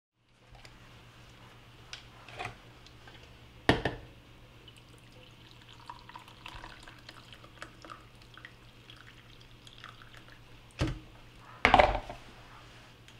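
Water poured from a stainless-steel electric kettle into a mug, with a sharp knock about four seconds in and two more near the end as the kettle is set back down on its base.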